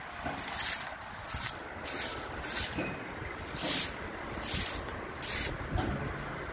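Broom sweeping snow off a tower crane's steel walkway and winch frame: repeated swishes, roughly one a second, over low wind rumble on the microphone.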